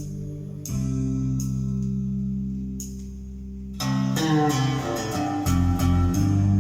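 Music played through Klipsch RP-280F floor-standing speakers. Sustained low chords change about a second in and again near four seconds, followed by a busier run of quick notes. Deeper bass comes in about five and a half seconds in.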